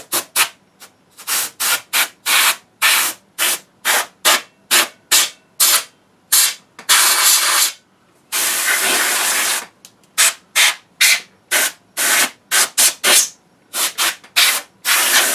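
Canned compressed-air duster blowing dust out of a receiver chassis in short hissing bursts, about two or three a second, with two longer blasts of a second or so near the middle.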